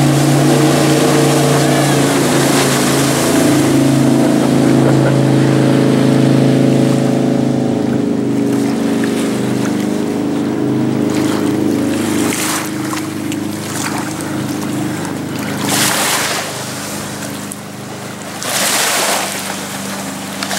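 Jet boat running fast past the shore, its engine a steady multi-pitched drone that fades away after about twelve seconds. Its wake then reaches the beach, with waves washing up onto the sand in three rushing surges near the end.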